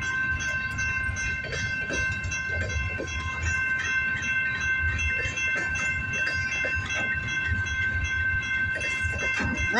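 Long CN freight train rolling past: the cars' wheels rumble and clack on the rail joints, with a steady high-pitched tone over the rumble.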